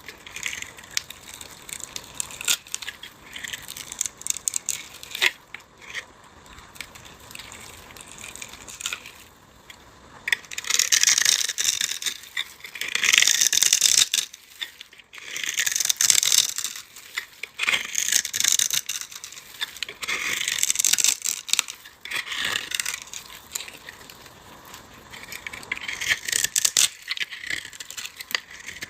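Dry, brittle block crushed and crumbled in repeated crunchy bursts of about a second or two, a few seconds apart, with fine crackling in between.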